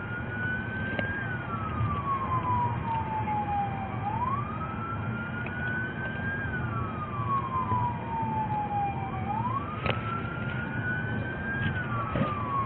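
Police siren in a slow wail, rising quickly, then falling slowly, about once every five seconds, over the steady low rumble of a moving vehicle's cabin.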